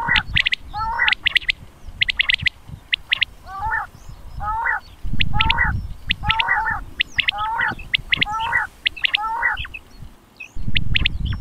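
Quail calling over and over, a hooked call repeated roughly once a second with sharp higher notes between the calls. Low rumble comes and goes in a few bursts.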